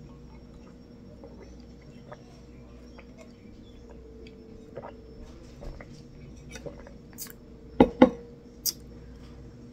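Sipping through a straw from a small juice can: faint small squeaks and clicks over a low steady hum. About eight seconds in come two sharp knocks in quick succession, then a lighter tap.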